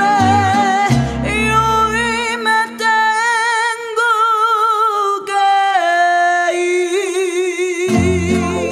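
Ranchera-style song music: plucked guitars and a deep bass line under a melody held on long notes with wide vibrato. The bass drops out for several seconds in the middle and comes back near the end.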